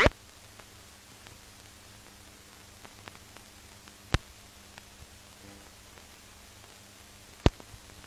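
Steady hiss and faint crackle of an old archival film soundtrack, broken by sharp clicks at the very start, about four seconds in and near the end.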